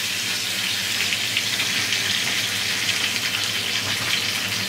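Marinated chicken leg pieces frying in hot oil in a pan, a steady sizzle.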